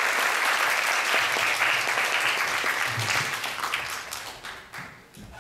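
Audience applauding, the clapping thinning out and dying away over the last second or two.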